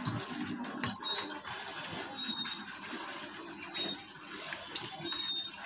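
Fingers mixing and scooping rice on a steel plate with small scraping clicks, then eating with wet chewing and mouth sounds. A louder peak comes about a second in and another near four seconds in.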